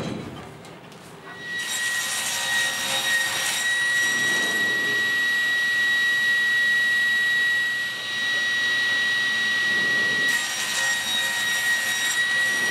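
Sliding table saw starting up about a second in and running with a steady high whine, its blade crosscutting a glued hardwood strip panel to length.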